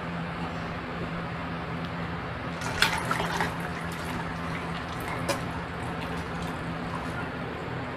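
Thick ground lentil batter being poured from a bowl into a steel pot of spiced water, the liquid sloshing as it goes in. A few sharp clinks, a steel spoon against the pot, come about three and five seconds in, over a steady low hum.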